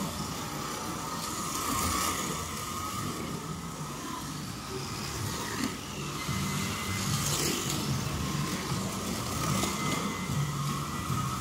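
Scalextric slot cars' small electric motors whining as they lap the track. The sound swells several times as cars pass close by.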